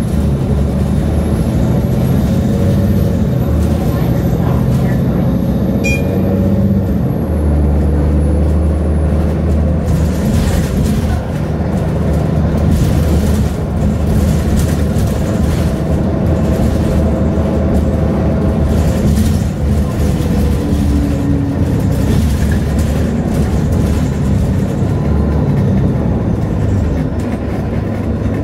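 Nova Bus LFS city bus in motion: a steady engine drone with road noise, the engine note shifting a few times as the bus changes speed.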